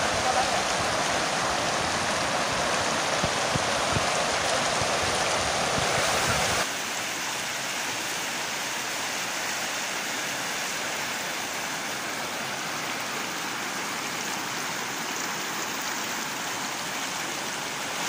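Whitewater of a fast, shallow river rushing over rocks, a steady rush of water. About six and a half seconds in it steps down abruptly to a lower level with less low rumble.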